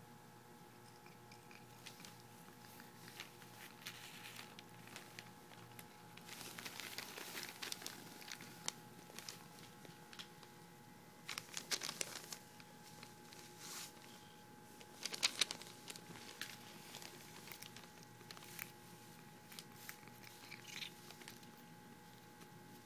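Scratchy, crinkling rustle of a paintbrush's bristles as a cat bites and rubs at it, coming in scattered bursts, the loudest about two-thirds of the way through. A faint steady hum runs underneath.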